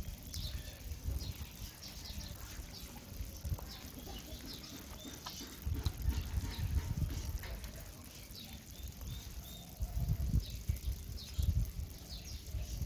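Small birds chirping outdoors in clusters of short, high chirps, with bursts of low rumble at times, loudest about six seconds in and again near the end.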